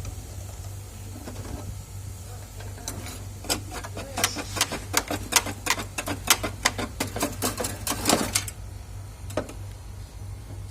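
A rapid, irregular run of sharp taps lasting about five seconds, several a second, over a steady low hum.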